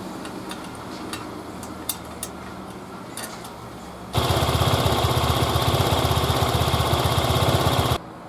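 A loud machine with a fast, even pulsing rhythm runs for about four seconds, starting and cutting off abruptly, over a quieter steady background with a few light clicks.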